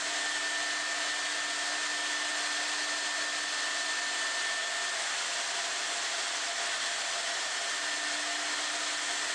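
High-speed vertical drilling spindle motor of a woodworking machine running steadily, an even whine and hiss with a high steady tone that drops away about halfway through.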